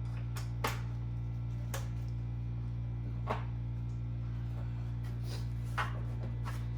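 A few scattered light clicks and knocks of parts and hand tools being handled while a truck tow mirror is fitted, over a steady low hum.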